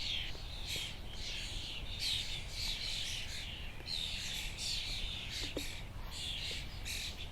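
Forest songbirds chirping, with many short calls overlapping one after another without a pause, over a steady low rumble of background noise.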